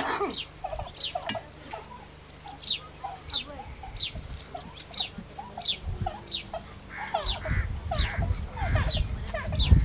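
A bird chirping over and over: short high chirps, each falling in pitch, about one and a half a second, with softer lower notes between them. A low rumble joins from about seven seconds in.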